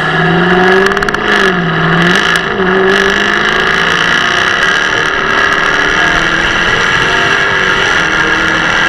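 Jaguar F-Type V8 R's supercharged 5.0-litre V8 running under way. The engine note dips and climbs again in the first few seconds, then holds at a fairly steady pitch.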